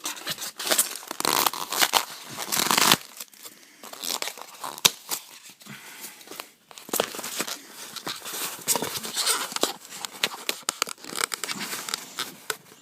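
Crinkling and tearing of a foil trading-card pack wrapper, with irregular handling clicks and rustles; the densest, loudest crinkling comes in the first three seconds.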